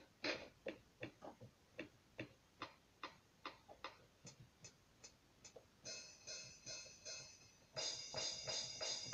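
Electronic keyboard playing a percussion rhythm of short, evenly spaced ticks at about two or three a second. About six seconds in a pitched electronic tone pulses briefly, and near the end a louder held electronic note sounds.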